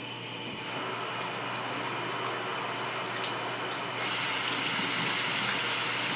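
Bathroom sink tap turned on and running, water splashing into the basin. It comes on just under a second in and runs harder and louder from about four seconds in.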